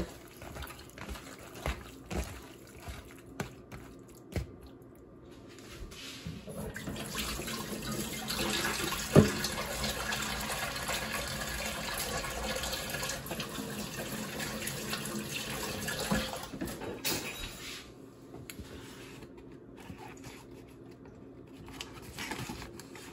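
Kitchen sink tap running steadily for about ten seconds, turned on about six seconds in and off around sixteen seconds, with a sharp click while it runs. Before it, faint soft sounds of a hand mixing sliced beef in marinade in a plastic bowl.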